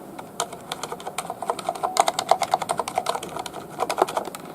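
Fast, uneven typing on a Corsair STRAFE RGB mechanical keyboard with Cherry MX Silent switches. The keystrokes are soft and muted, very quiet for a mechanical keyboard and about as quiet as a membrane keyboard.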